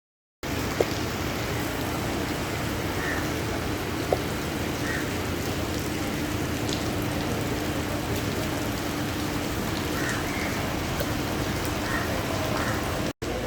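Steady rain falling, an even hiss, with a faint low hum beneath it and a couple of light knocks in the first few seconds.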